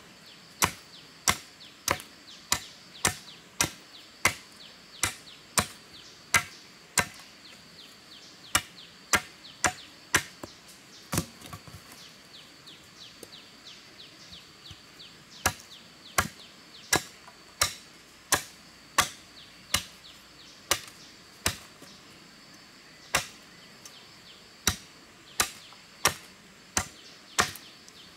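A machete chopping at the end of a bamboo pole, cutting it to a point: sharp, regular chops about one and a half a second, with a short stretch of lighter taps around the middle.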